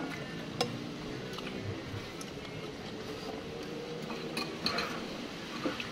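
Metal spoons and a fork clinking against soup bowls while eating, a handful of separate clinks with a quick cluster about four and a half seconds in.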